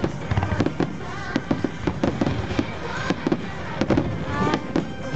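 Aerial fireworks shells bursting in a dense barrage: many sharp bangs and crackles in quick, irregular succession, several a second, over a continuous low rumble.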